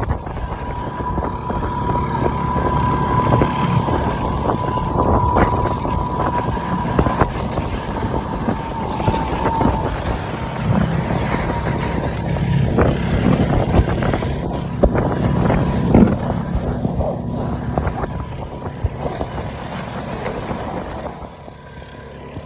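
A motor running steadily, with wind buffeting the microphone in irregular gusts. A steady whine sits above the engine's hum for the first half and then fades.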